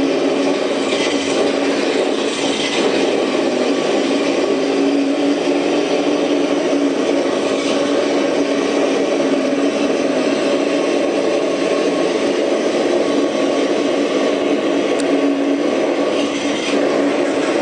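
Engine sound of a Ford Mustang Cobra, played from a sound file through an ESS One engine-sound system on a Bronco, running steadily at an even pitch with no revving.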